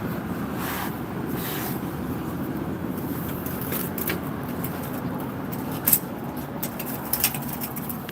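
Hand tool scraping and brushing on fresh brickwork to clean off excess mortar, in short strokes with two sharp clicks about six and seven seconds in, over a steady low background rumble.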